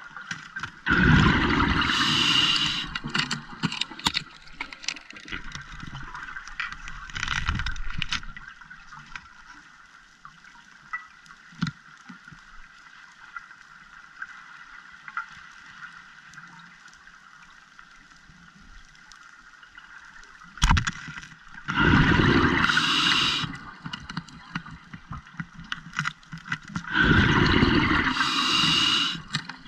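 Scuba diver's exhaled bubbles gurgling out of the regulator in bursts of about two seconds, four times, with a long pause between the second and third bursts. Between them a faint steady underwater hiss with light clicks, and one sharp knock just before the third burst.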